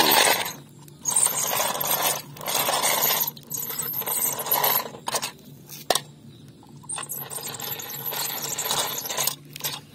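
Plastic toy car-hauler truck pushed along concrete, its small plastic wheels and body scraping and rattling in several bursts, with one sharp click about six seconds in.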